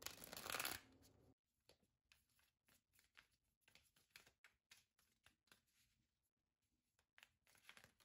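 A deck of tarot cards being handled and shuffled by hand. A short, louder scraping rustle opens it, then comes a string of soft card flicks and taps, with a louder riffle near the end.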